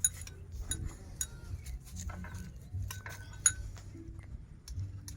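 Scattered light clinks and taps of eating utensils against a dish, with one sharper clink about three and a half seconds in.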